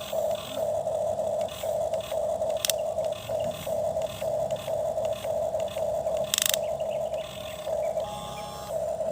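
Toy excavator whining at one steady pitch, cutting in and out in short spells as its arm is worked, with a sharp click about three seconds in and a brief scrape of dirt past the middle.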